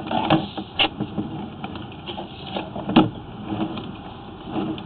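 Sewer inspection camera's push cable being pulled back through the line: irregular clicks and knocks of the cable and its handling over a steady rumbling noise, with the sharpest knock about three seconds in.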